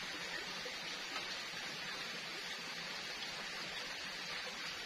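Steady, even hiss of outdoor forest background noise, with no distinct events.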